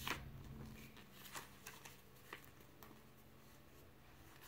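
Faint paper rustles and flicks as a picture book's pages are turned by hand: a few short ones, the clearest right at the start.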